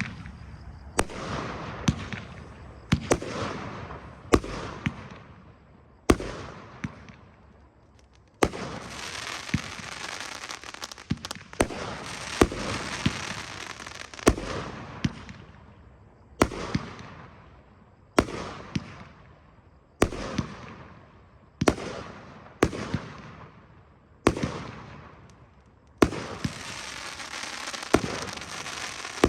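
A repeating fireworks cake, "Lluvia de Luces", firing a shot about every two seconds. Each sharp bang is followed by a spreading crackle that fades away, and in the middle and near the end the crackle carries on without a break between shots.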